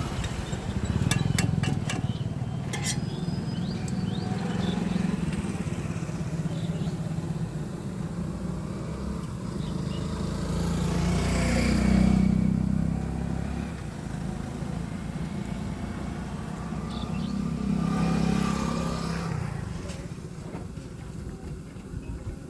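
Street traffic: motor vehicle engines running as they pass, the rumble swelling and fading twice. There are a few sharp clinks near the start.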